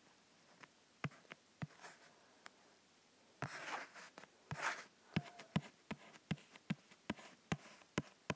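Faint, sharp light taps, coming about two or three a second in the second half, with two short rustles about three and a half and four and a half seconds in, like hands handling things.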